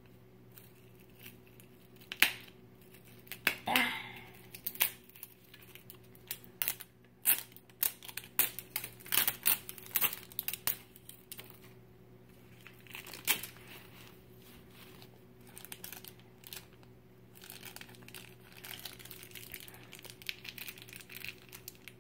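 Plastic wrapping of an L.O.L. Surprise doll package being crinkled and torn open by hand. Sharp crackles and rips come thick and fast for several seconds, then give way to softer, steadier crinkling near the end.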